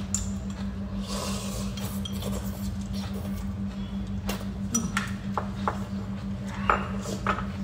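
People slurping and chewing kimchi ramen noodles, with a few sharp clicks of chopsticks and bowls near the end over a steady low hum.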